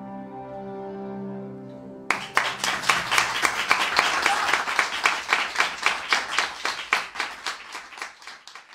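The music ends on a held chord, then about two seconds in an audience breaks into applause, which thins out and fades near the end.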